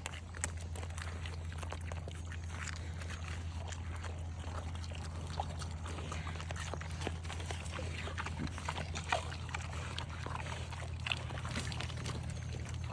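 Pigs eating eggs: a dense run of short clicks and crunches from chewing and smacking, over a steady low hum.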